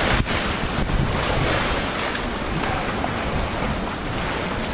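Wind gusting across the microphone over the steady wash of choppy open water.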